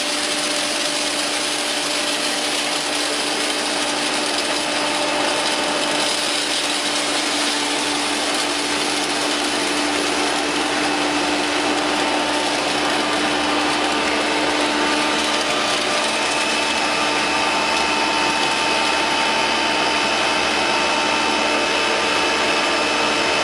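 9FQ-360 hammer-mill corn grinder running on its electric motor while grinding corn: a loud, steady whirring noise with several steady whining tones on top, unchanging throughout.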